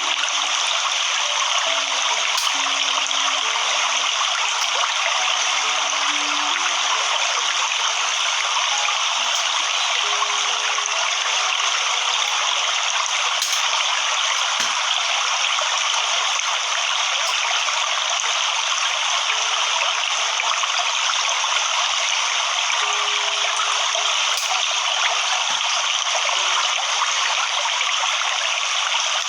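Waterfall rushing steadily, an even, unbroken wash of water noise with little bass.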